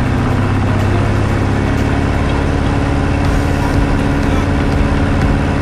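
Diamond Katana light aircraft's piston engine and propeller at takeoff power during the takeoff roll, heard from inside the cabin: a loud, steady drone.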